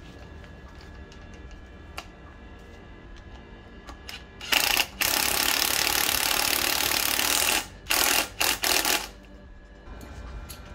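Cordless driver run on a bolt on an engine block: one long run of about three seconds, then three short bursts on the trigger.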